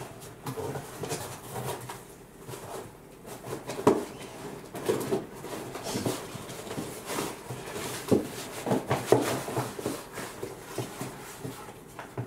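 Cardboard box and packing material being handled and pulled apart, with scattered rustles and a few sharp knocks.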